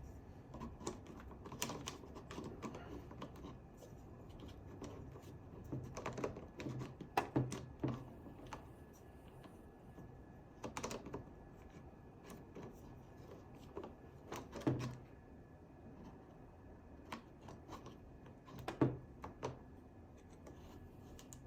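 Irregular clicks and light knocks of a short vertical foregrip being fitted and tightened onto the rail of a Lancer Tactical M4SD airsoft rifle, with a few sharper knocks now and then.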